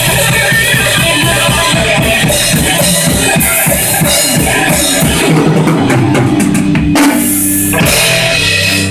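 Loud rock-style music with a full drum kit, its bass drum keeping a steady, fast beat, which stops abruptly near the end.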